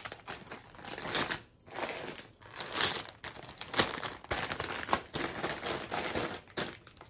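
Plastic popcorn bags crinkling in irregular bursts as they are handled and pushed down into a woven wicker basket.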